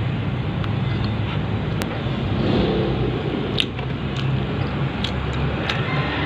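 A steady low hum and hiss of background noise, like a motor or traffic, with a few faint clicks.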